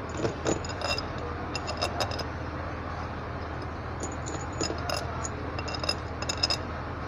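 Steel bolts clinking against one another and against a bus AC compressor's cylinder head as they are handled and dropped into the bolt holes, in scattered clusters of small metallic clicks over a steady low hum.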